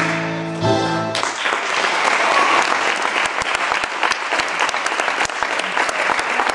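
Gymnastics floor-routine music ending about a second in, followed by audience applause with sharp individual claps, which cuts off suddenly at the end.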